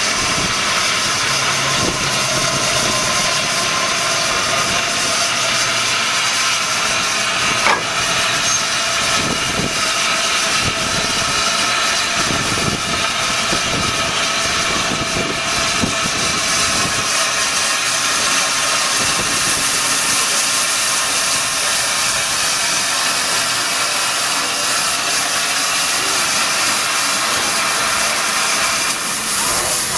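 Steam hissing steadily from LNER Peppercorn A1 steam locomotive 60163 Tornado, with a single sharp click about eight seconds in.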